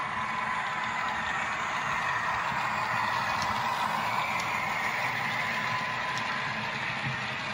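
Sound-fitted OO gauge model of a Class 60 diesel locomotive, its DCC sound decoder playing a Class 60 engine sound through its small on-board speaker while the model and its train of wagons roll along the track. The engine hum grows a little louder near the middle as the locomotive passes, with a few faint clicks.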